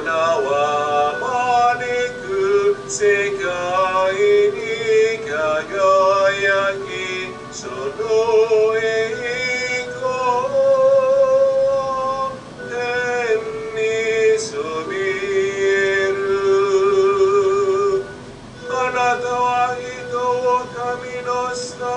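A singing voice with vibrato, holding long notes in slow phrases of a church song between the readings of a Mass, with a short break about 18 seconds in.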